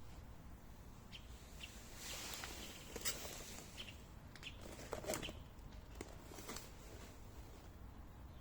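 Faint handling noises from unpacking: a series of sharp clicks and knocks, with a short rustle of packaging about two seconds in.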